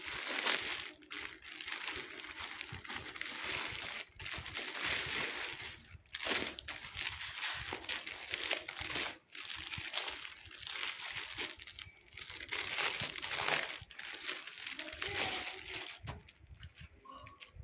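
Plastic crinkling and rustling as a polythene courier mailer and the clear plastic wrapping of fabric packs are handled, almost continuous with short pauses and fading near the end.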